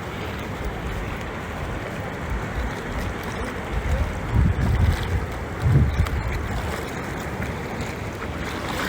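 Steady rushing noise of floodwater, with wind buffeting the microphone in low rumbles about four and six seconds in.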